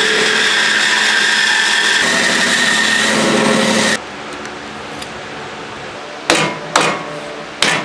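Clear tape pulled off its roll onto a wooden block, a loud steady rasp that stops abruptly about four seconds in. Then three short, sharp knocks.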